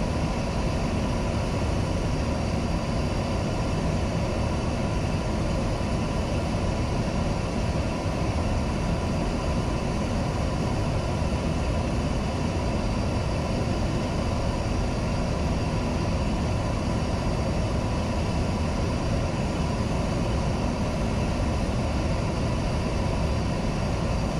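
Steady rushing airflow and engine noise on the flight deck of a Boeing 737-800 on short final approach, even throughout, with a few faint steady tones.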